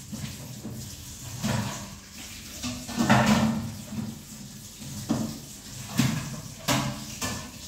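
Dishes being washed by hand in a kitchen sink: pans and crockery clattering and scraping, with a few sharp clinks near the end.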